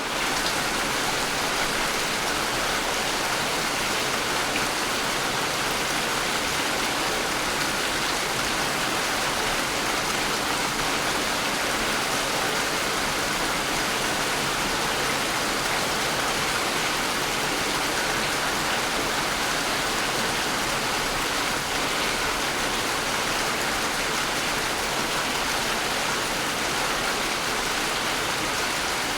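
Steady rain falling, an even dense hiss that holds without a break.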